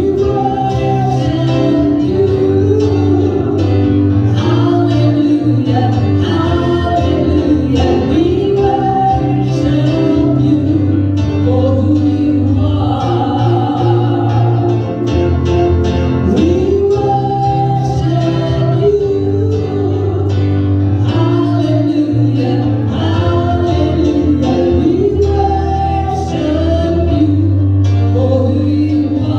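Gospel song: voices singing over instrumental accompaniment with long held bass notes.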